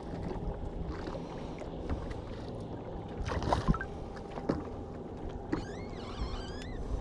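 Handling noise on a small fishing boat: light knocks and taps on the hull over a steady low wash of wind and water, with a few short high whistling notes near the end.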